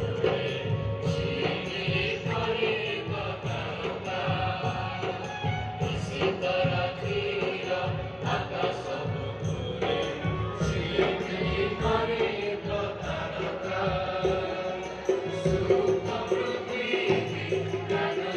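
A group of young singers sings a Christmas carol together, backed by keyboard, as one steady stretch of choral singing.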